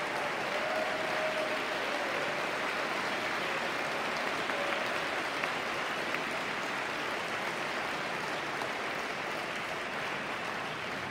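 Concert audience applauding steadily after an orchestral performance, the clapping easing slightly near the end.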